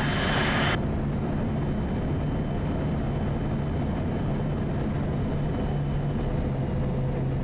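Quest Kodiak's turboprop engine and propeller droning steadily on a slow final approach, with a hiss of air; a brighter hiss cuts off sharply just under a second in.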